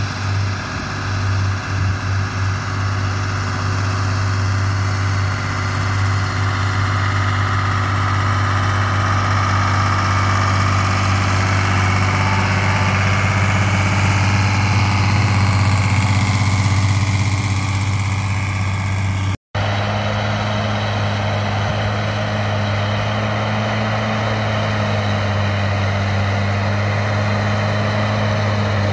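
Big six-cylinder diesel tractor engines of a Zetor 12145 and a John Deere 7800 running steadily under load while pulling tillage and seeding implements through heavy soil. The sound drops out for an instant about two-thirds of the way through, then resumes with a slightly different engine tone.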